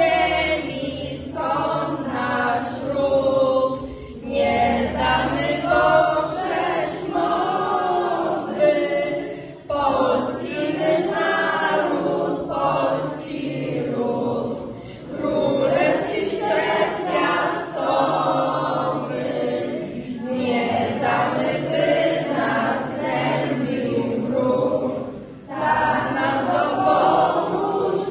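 Unaccompanied singing, in long phrases broken by brief pauses about every five seconds.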